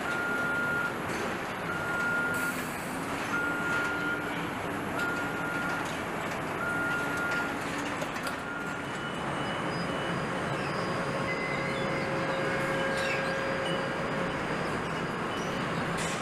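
Assembly-line factory noise with an electronic warning beeper on moving equipment sounding six even beeps, about one every second and a half, which stop about nine seconds in. Steady machinery noise with faint whining tones continues underneath.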